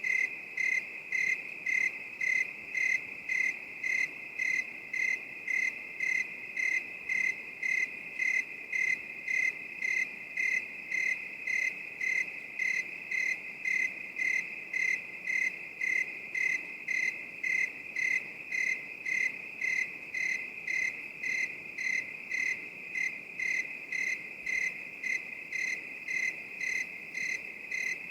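Crickets chirping: one cricket pulses steadily about twice a second over a continuous high insect trill.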